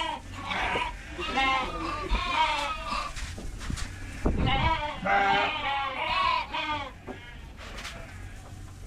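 Several Dorper sheep bleating, their wavering calls overlapping one after another, then dying down for the last couple of seconds.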